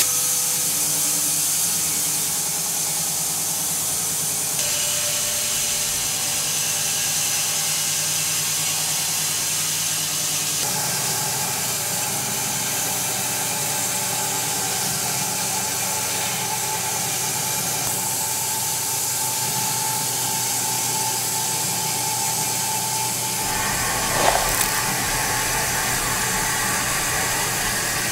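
Bandsaw sawmill running steadily as its blade cuts through a walnut log, a hissing cut over the machine's steady hum. The sound shifts abruptly a few times, and a short sharp knock comes near the end.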